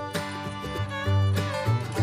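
Instrumental background music with a pulsing bass line.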